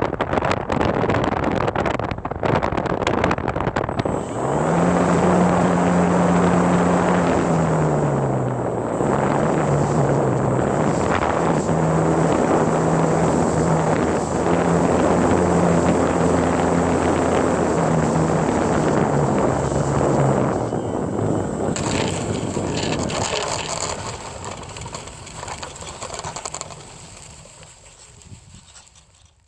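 Wind rushing over the microphone of a phone riding on a radio-controlled model plane in flight, with the plane's motor and propeller humming. The hum falls in pitch, then cuts in and out, and all of it fades away over the last few seconds.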